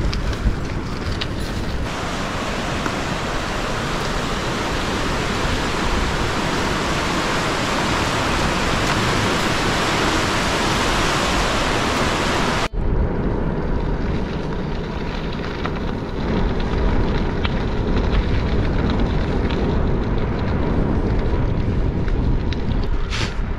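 Wind noise on the microphone and tyre noise of a touring bicycle being ridden, a steady rushing hiss. About 13 s in it cuts abruptly to a duller, lower rumble.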